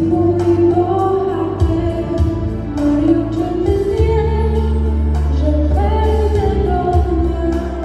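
Young woman singing solo into a handheld microphone over amplified accompaniment with sustained bass notes and a regular beat.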